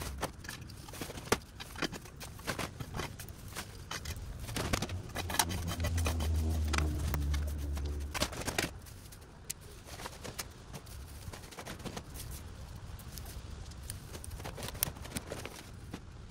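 Crackling, rustling and knocking as yard debris and cut brush are handled and stuffed into paper yard-waste bags. A low engine hum swells and fades about four to eight seconds in.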